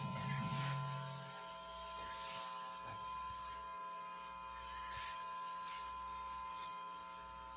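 Steady, faint electrical hum with a thin high whine over low room noise; a lower drone underneath stops about a second in.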